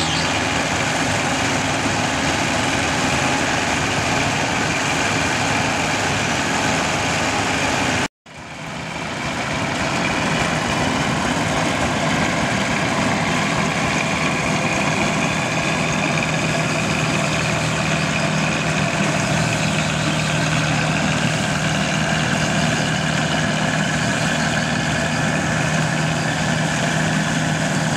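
A 1963 Aktiv combine harvester runs steadily with its Perkins diesel engine and threshing machinery, a dense mechanical noise that the crew call running smooth. About eight seconds in, the sound cuts out for an instant and then fades back in.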